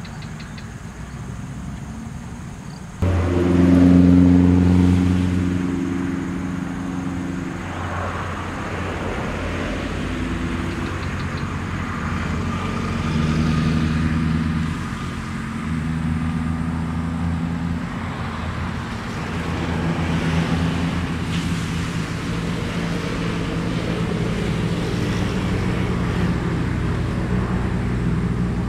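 Road traffic: motor vehicle engines giving a steady low hum that comes in suddenly about three seconds in, then holds with small shifts in pitch as vehicles go by.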